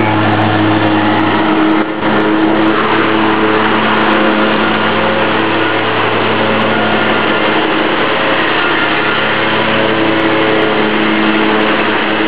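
Hustler Super Z zero-turn mower running steadily while mowing grass.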